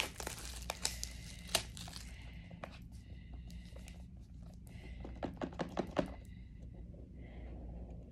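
Apple AirPods box being unboxed by hand: packaging crinkling and tearing, with scattered sharp clicks and light knocks.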